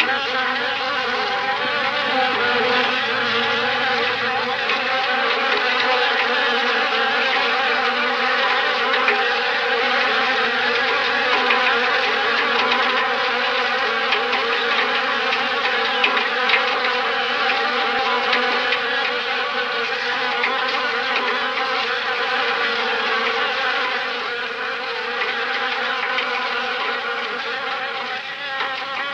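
A fly buzzing continuously in a steady, even drone, a little quieter for the last few seconds.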